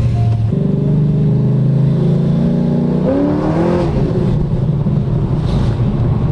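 Cammed 5.7-litre LS1 V8 of a Holden VY Commodore SS ute running at steady revs, then revving up briefly about three seconds in, after which the sound turns rougher and noisier.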